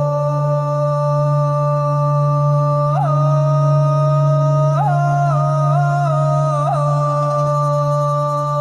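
Ethno-oriental electronic music: a long held, wordless chant-like note over a steady low drone, with brief ornamental pitch bends in the middle.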